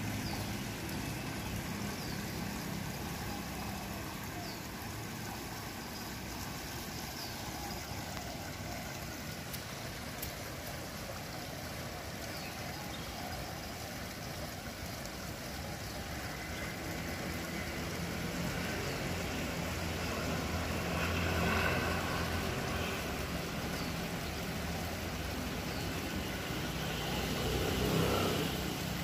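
Steady rush and splash of water pouring from an outlet into a river, over a low engine hum from passing motor traffic that swells twice near the end.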